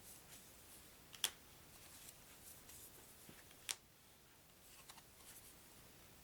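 Playing cards being counted out by hand: faint scattered rustles and light ticks of cards being laid down, with two sharper clicks about a second and nearly four seconds in.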